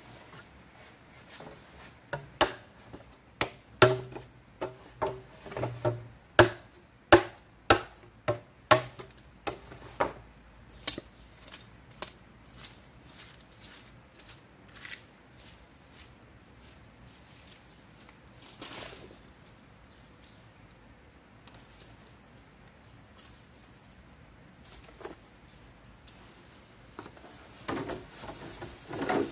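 Sharp knocks of a hand tool striking bamboo, about two a second for the first ten seconds or so, then only now and then, with a quick run of knocks again near the end. Under them, crickets chirr steadily at a high pitch.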